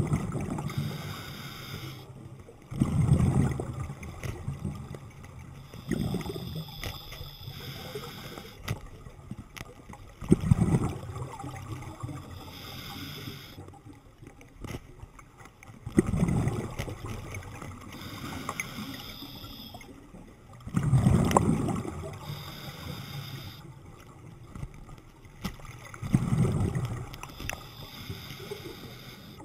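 Underwater breathing of a diver on a regulator: a gurgling rush of exhaled bubbles every three to five seconds, with quieter water noise between.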